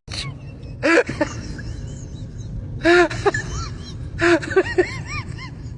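A pet animal's short, high cries, each rising and falling in pitch, in several small groups over a low steady background.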